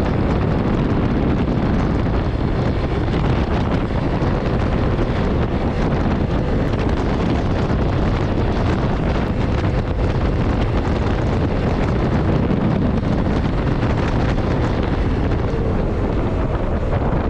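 Steady wind rush on the microphone while riding at road speed, with the Honda CRF300L Rally's single-cylinder engine running steadily underneath.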